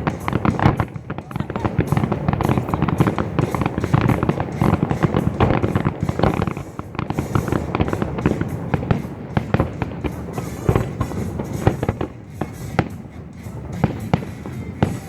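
Fireworks show with rapid bursts and dense crackling over a jazz soundtrack; the crackle thins out after about ten seconds.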